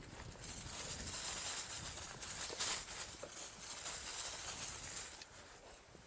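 Mongoose Tyax mountain bike rolling over a rough dirt track: a dense crunching hiss from the tyres with fine clattering over bumps, louder from about half a second in and fading near the end.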